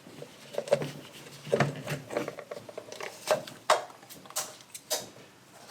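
Parts of a cut-open spin-on oil filter being handled and pulled apart: irregular light clicks, knocks and rubbing, with a few sharper clicks in the second half.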